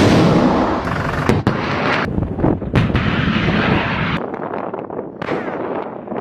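A missile launch from a vehicle-mounted canister launcher: a sudden blast, then a rushing roar with several sharp cracks over the first few seconds. After about four seconds the roar falls away, leaving a few more cracks and a rumble, and the sound cuts off suddenly at the end.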